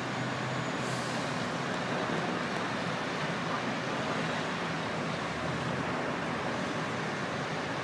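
Steady city street traffic noise: a continuous rush of road vehicles with a faint low hum underneath.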